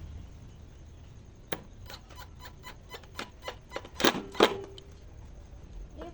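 A run of light taps or clicks, about four or five a second, ending in two loud knocks close together.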